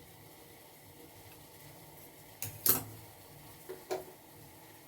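Four light clinks and knocks of kitchen utensils, in two pairs: about halfway through, then again near the end. They sound over a faint steady background.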